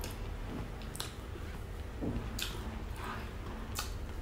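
Close-miked chewing and biting of food, wet mouth sounds broken by four or five sharp, crunchy crackles, over a low steady hum.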